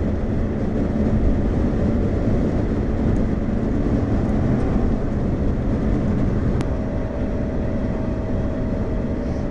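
Road and engine noise inside a moving car's cabin, a steady low rumble. A sharp click comes about six and a half seconds in, and a faint steady tone joins just after it.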